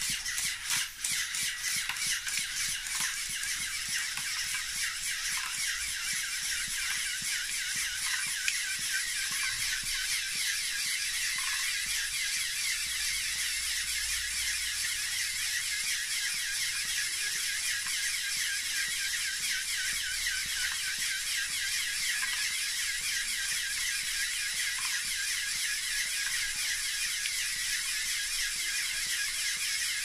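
Motor-driven LEGO Technic pneumatic pumps running steadily: a high mechanical whir that pulses rapidly and evenly with the pump strokes.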